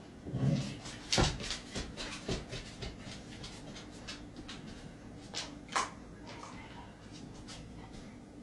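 A Samoyed's paws and claws clicking and scuffling in an irregular patter of taps as the dog dances about, with a low thud just after the start and a few louder knocks about a second in and near six seconds.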